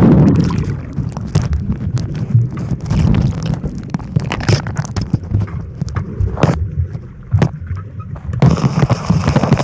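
A splash as the camera goes under the pool water, then the muffled low rumble of sound heard underwater, with bubbles and scattered sharp clicks and knocks from the camera being handled. The rumble swells again near the end.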